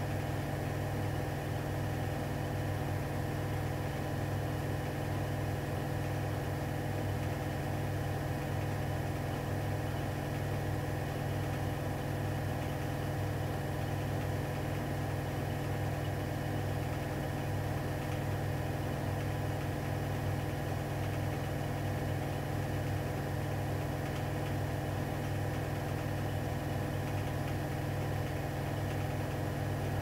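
Electrolux PerfectCare 600 EW6F3146EB washing machine running near the end of its cotton program, a steady even hum with no breaks or changes.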